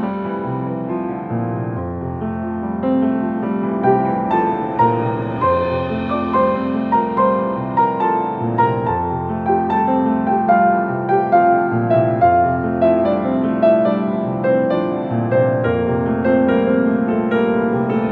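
Background music led by a gentle piano melody over sustained chords.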